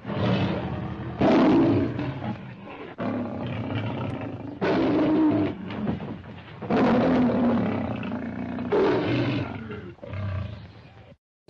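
A string of about seven big-cat roar sound effects played one after another, each a second or two long and starting abruptly.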